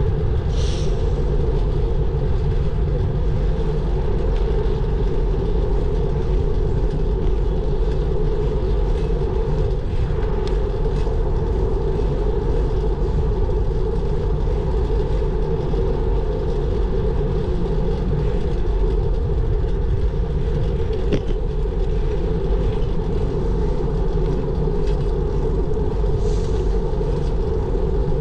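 Steady low rumble of a moving bicycle ride: wind and road noise, unbroken throughout, with two brief faint high chirps, one just after the start and one near the end.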